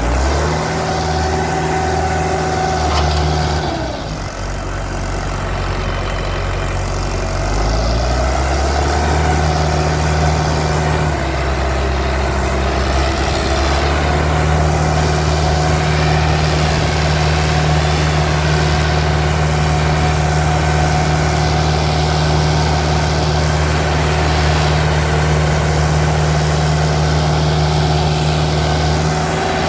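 Indo Farm 3055 tractor's diesel engine working hard while pulling two disc harrows. Its pitch sags and recovers a few times early on, then holds steady, and falls near the end.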